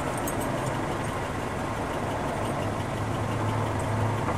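Steady low engine hum, like a vehicle idling, growing a little stronger past the middle.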